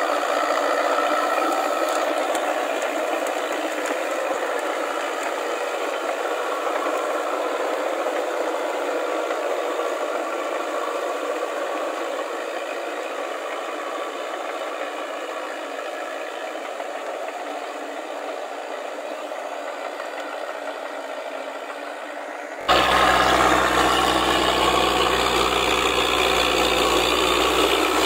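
Crawler tractor with a rotary tiller working a muddy paddy: its engine running steadily with rattling and clatter from the tracks and tiller. At first the sound is thin, with no deep tones, and slowly gets a little quieter. About 23 seconds in it cuts abruptly to a louder, closer sound with a deep engine hum.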